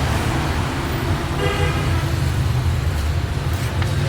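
Road traffic with a steady low engine rumble, and a brief horn toot about a second and a half in.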